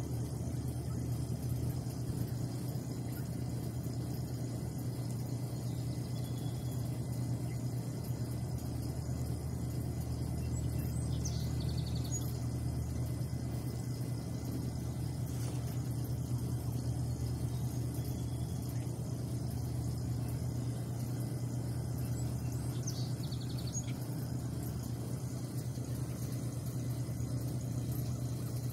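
Steady low drone of an engine-driven machine running, likely the compressor that is later said to frighten the geese off. Two faint short high chirps, about 11 and 23 seconds in.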